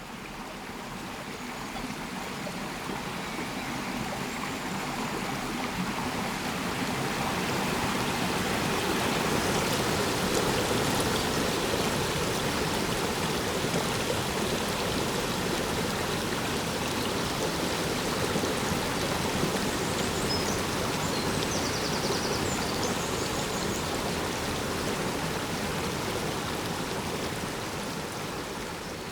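A stream running steadily, growing louder over the first ten seconds, then holding before easing off near the end.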